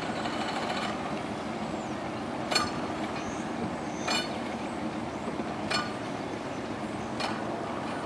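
Sterndrive engine of a Sea Swirl Striper 2101 idling as the boat moves slowly past, a steady low rumble. Over it come four sharp metallic clinks, evenly spaced about a second and a half apart.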